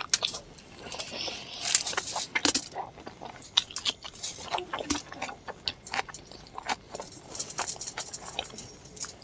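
Close-miked wet chewing and lip-smacking as curry-soaked luchi (puffed fried bread) is eaten by hand. Irregular moist mouth clicks and squelches run throughout.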